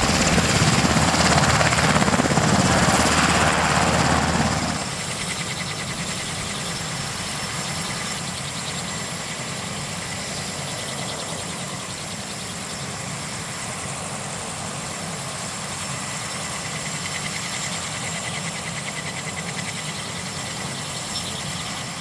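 JASDF UH-60J rescue helicopter running on the ground with its twin turboshaft engines and main rotor turning. It is loud and heavy at first, then drops sharply about five seconds in and goes on steadier and quieter.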